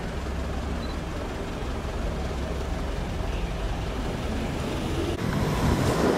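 Heavy truck's diesel engine running with a steady low rumble, changing and growing somewhat louder about five seconds in.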